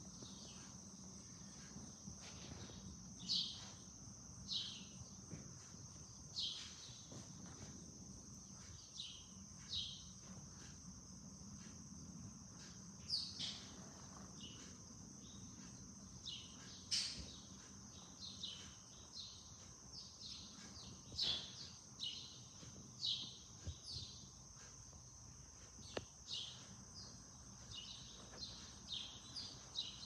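House sparrows chirping in short, irregular calls, some louder than others, over a steady high-pitched insect drone.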